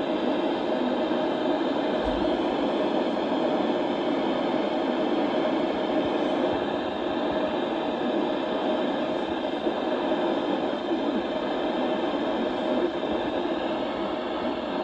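Steady radio static: a loud, even hiss with faint humming tones running through it.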